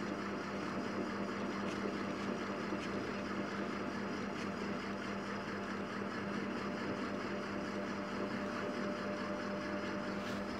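Steady, unchanging background noise, a low even hiss and rumble with no distinct events.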